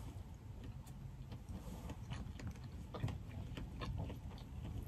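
Faint scattered clicks and small taps from eating boiled crawfish by hand, over a steady low hum.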